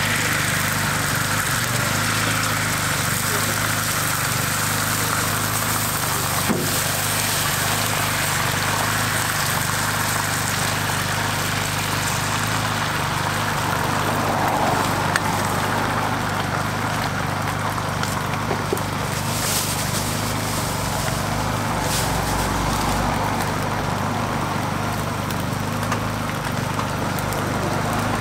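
Beaten egg sizzling on a hot oiled flat-top griddle, a steady hiss over a continuous low mechanical hum. A couple of light clicks of utensils.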